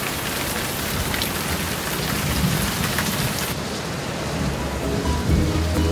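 Steady rain hissing with a low rumble of thunder underneath.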